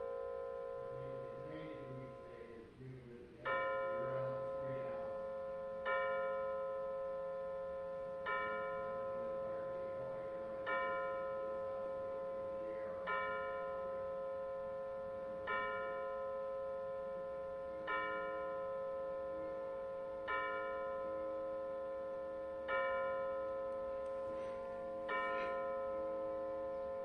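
A chiming clock striking ten o'clock: ten slow, bell-like strokes about two and a half seconds apart, each ringing on until the next. It begins with the last note of the chime tune fading away.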